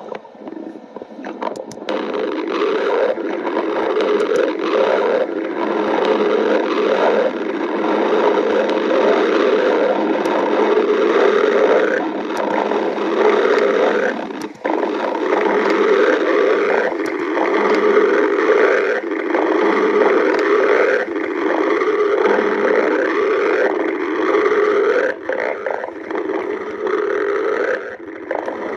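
Loud, long stomach growling: a continuous gurgling rumble full of short wavering rises and falls, with one brief break about halfway through.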